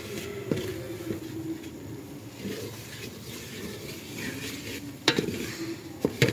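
A slotted spatula stirring and scraping flour into melted butter and oil in a metal pot over the heat, with a light sizzle: a roux being cooked for white sauce. Two sharp knocks of the spatula against the pot about five and six seconds in.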